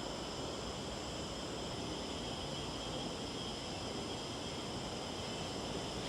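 Steady outdoor ambience: a low, wind-like rumble with a constant high hiss, unchanging throughout, with no distinct events.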